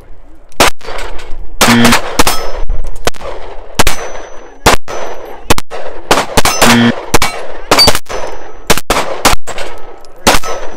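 Pistol fired in a steady string of about fifteen shots, roughly one to two a second and some in quick pairs, with steel targets ringing briefly after hits.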